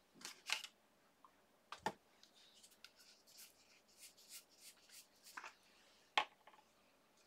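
Soft handling sounds on a craft mat: paper and card pieces slid and set down, with a few light taps and clicks, the sharpest about six seconds in.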